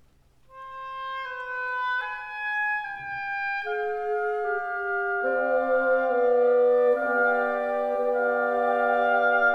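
Background music: a slow melody of long held notes that begins about half a second in and grows fuller and louder as more parts join in chords.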